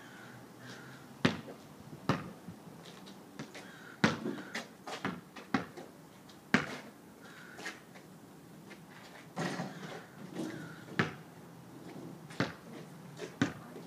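Basketball bouncing on pavement and striking the hoop, heard as about a dozen sharp, irregularly spaced bangs and thuds.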